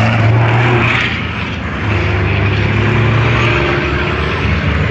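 Several racing trucks' diesel engines running as the trucks drive along the circuit, a steady low drone that dips briefly about a second in and then picks up again.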